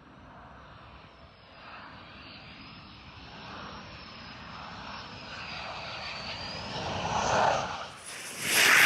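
Aircraft engine drone with a thin high whine that wavers slightly in pitch, growing steadily louder. It drops away briefly near the end, and a much louder aircraft roar cuts in.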